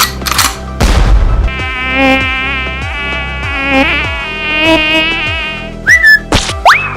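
Cartoon sound effect of a fly buzzing, a wavering drone that lasts about four seconds over a low repeating beat. Near the end come quick whistling glides, one sweeping sharply upward.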